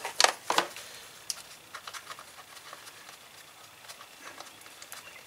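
A hand tool clinking on the 8 mm bolts of a 150cc go-kart engine's side cover as they are loosened. Two sharp metal clicks come about a quarter and half a second in, followed by scattered light clicks.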